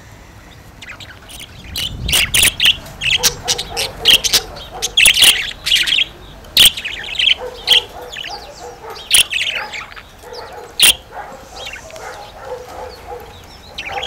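Budgerigars chirping and chattering in their cage: a quick run of loud, sharp chirps starts about two seconds in and thins out near the end.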